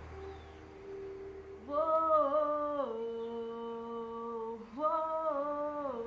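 A woman humming a melody unaccompanied, without words. Two phrases, each starting on a higher note that bends down and settles into a long held note.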